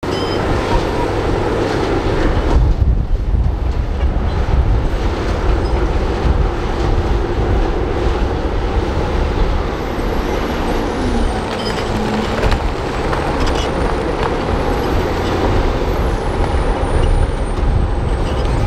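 Heavy diesel engines of dump trucks and a crawler bulldozer running steadily, with rock and soil sliding out of a raised dump bed.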